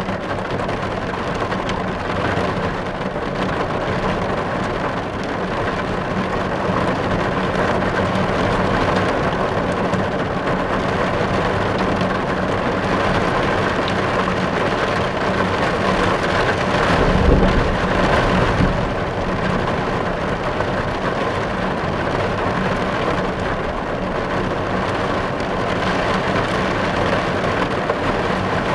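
Steady heavy rainfall hissing evenly throughout, with a brief low rumble of thunder swelling about halfway through.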